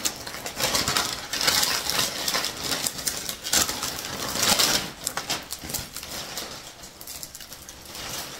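Paper and plastic wrapping rustling and crinkling as it is handled, loudest for the first five seconds, then softer.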